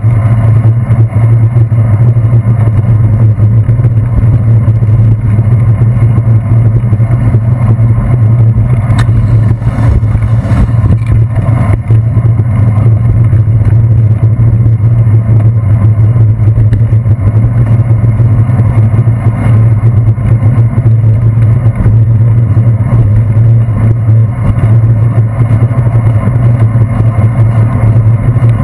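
Loud, steady low rumble of wind and road vibration picked up by a handlebar-mounted GoPro Hero 2 on a bicycle riding on wet streets, with car traffic mixed in. A few faint knocks come about a third of the way in.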